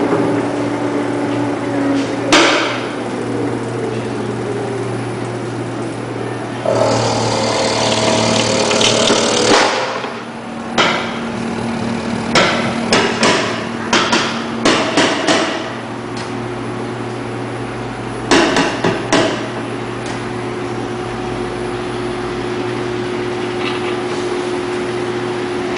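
Electric vegetable cutting machine running with a steady motor hum while vegetables are fed through it and cut into round slices. About seven seconds in comes a few seconds of rushing, rattling noise, then bouts of quick knocks and clatter.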